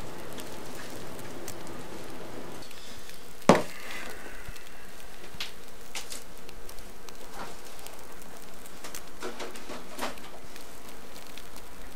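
Doors being handled, a room door and then a refrigerator door. A sharp knock comes about three and a half seconds in, followed by scattered light clicks and taps, over a steady hiss.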